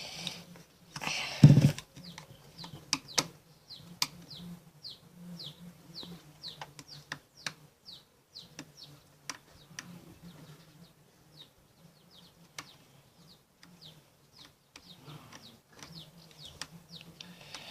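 A small screw being turned out of a plastic toy casing with a screwdriver. Short high squeaks repeat about twice a second, with scattered clicks, and there is a louder scrape or rustle about a second in.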